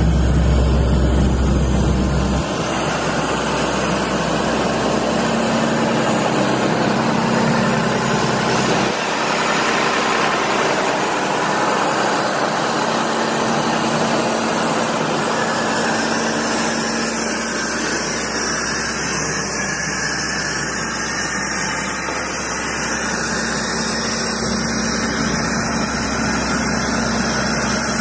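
Mercedes OM926LA 7.2-litre six-cylinder diesel of an Atlas Copco XAHS416MD portable screw air compressor running steadily, a dense mechanical noise with a low hum. The deep rumble weakens a couple of seconds in and again around nine seconds, then comes back.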